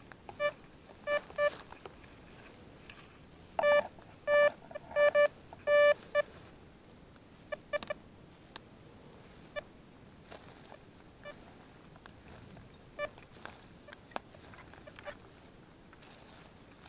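Detech Chaser metal detector sounding short, low-pitched beeps as its coil sweeps over a target: a few softer beeps, then a quicker run of louder beeps between about four and six seconds in. The low tone marks an iron target. Scattered faint clicks follow.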